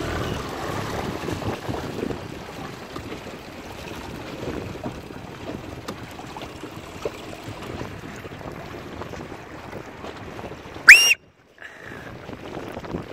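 Wind on the microphone and choppy water, then one short, loud whistle rising in pitch near the end, after which the sound cuts out for about half a second.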